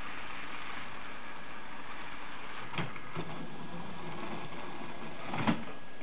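Lego Mindstorms robot's electric motors and plastic gears whirring steadily as it turns the layers of a Rubik's Cube to scramble it, with short plastic clacks a little under three seconds in and a louder one near the end.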